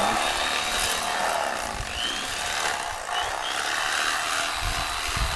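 Electric fillet knife running steadily while cleaning sheepshead.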